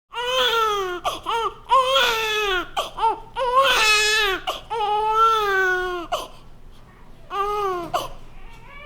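An infant crying hard in a string of wailing cries, each rising and falling in pitch, broken by short catches of breath. One cry a little before halfway is the highest and shrillest. A pause of about a second comes near the end before one more cry.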